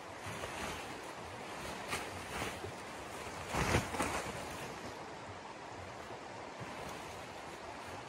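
Large tent fabric rustling and flapping as it is lifted and shaken out, loudest in a burst about three and a half seconds in, with smaller rustles shortly before, over a steady outdoor hiss.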